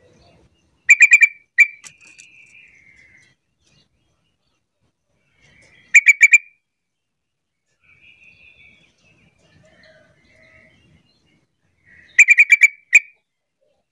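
Yellow-vented bulbul calling: three short bursts of loud, rapid, sharp notes about five seconds apart, with softer warbling chirps in between.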